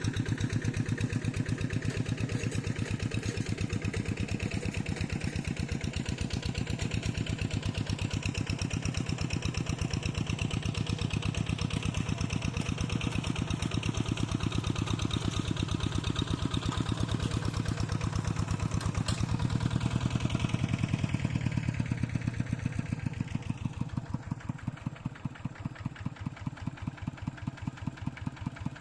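Tractor engine running with a steady, even chug, dropping a little in loudness near the end.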